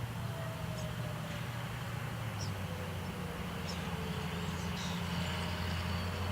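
Federal Signal Thunderbolt 1000 outdoor warning siren winding down at the end of its test: a faint tone slowly falling in pitch and fading, over a steady low rumble.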